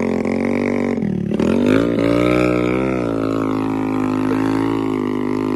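Motorcycle engine running steadily under load while towing another motorcycle by rope through mud. Its pitch dips about a second and a half in, then rises, wavers and settles.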